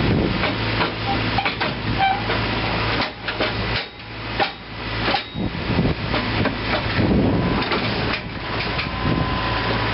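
Hitachi 130 excavator's diesel engine running with a steady hum, mixed with repeated sharp metallic knocks and clanks. The hum and overall level drop briefly around the middle, then return.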